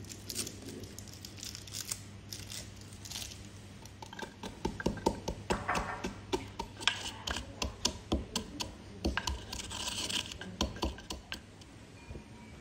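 A small wrapped biscuit packet crinkling as it is torn open, then biscuits being crushed with a wooden pestle in a wooden mortar: a fast run of sharp knocks and crunches, loudest in the middle, that stops near the end.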